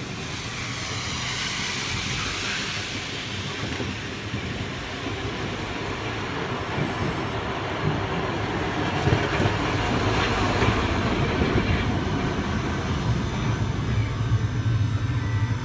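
A Hakodate city streetcar running along wet rails toward the stop and past it. Its wheel and motor noise grows louder as it nears, with brief whines that rise and fall in pitch.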